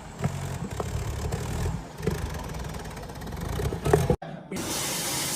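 Heavy diesel engine running steadily, with a few short knocks and clanks over it. A little after four seconds in it cuts off abruptly and a steady hiss takes over.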